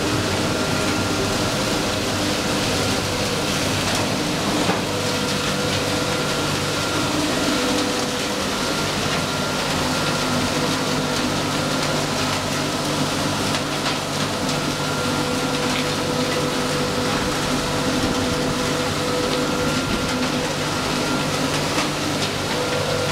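Sawdust briquette production line running steadily: a continuous machine noise of fans, ducting airflow and motors, with a constant hum under an even hiss.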